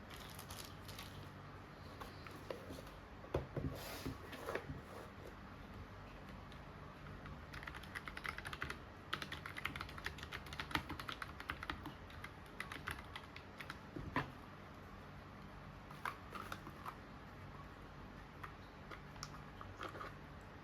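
Typing on the XINMENG C68 low-profile mechanical keyboard with brown switches: irregular runs of key clicks, densest in the middle, with a few louder single knocks.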